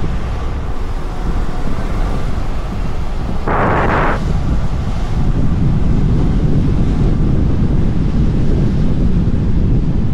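Wind buffeting the microphone: a loud, steady low rumble with a brief burst of hiss about three and a half seconds in.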